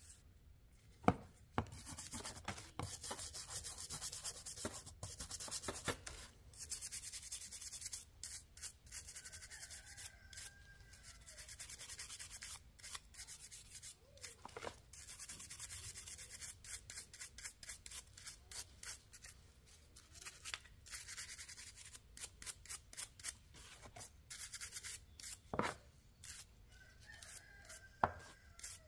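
Abrasive being scrubbed by hand against a rusty knife to clean off the rust, a dry rasping in quick back-and-forth strokes with short pauses. A few sharp knocks come as the knife is handled.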